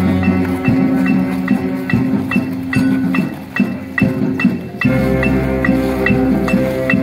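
Marching band brass playing: trumpets and mellophones holding chords over low sousaphone notes, with a steady tick keeping time about twice a second. The low brass drops out about a second in and comes back strongly about five seconds in.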